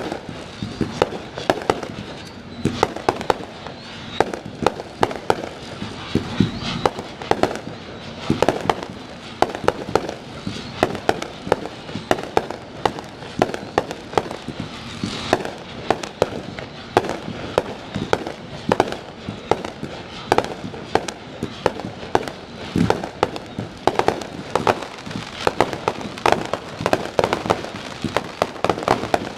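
Fireworks display: aerial shells bursting overhead in a dense, irregular stream of sharp bangs, several a second.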